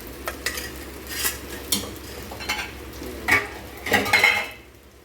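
Metal spoon stirring and scraping leftover cooked rice through fried onions in a pan, irregular clinks and scrapes over frying sizzle, growing quieter just before the end.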